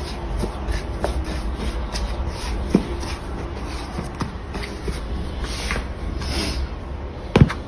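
Hands kneading and pressing soft bread dough on a floured wooden chopping board: steady rubbing and scraping with a few soft knocks on the wood, and one sharp knock near the end. A low steady hum runs underneath.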